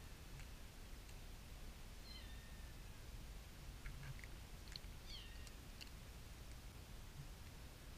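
Faint, high-pitched kitten mews: two short calls falling in pitch, a few seconds apart, with a few soft clicks in between.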